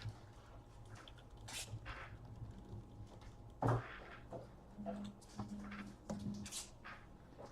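Trading cards and packaging being handled at a table: faint rustles, slides and light taps, with one louder knock about three and a half seconds in.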